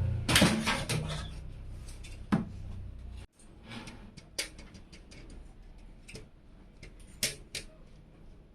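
Irregular clicks and light knocks of computer hardware being handled and fitted, the loudest cluster at the start. A low hum underneath cuts off suddenly about three seconds in.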